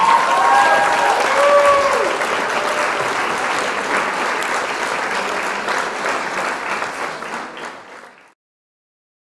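Crowd applauding and cheering, with a few raised cheering voices in the first couple of seconds; the applause fades out a little over a second before the end.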